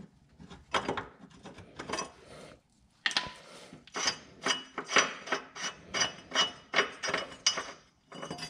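Hand tools clicking and clinking on metal fasteners under a car's rear suspension: scattered knocks, then after about three seconds a steady run of two or three metallic clicks a second with a faint ring.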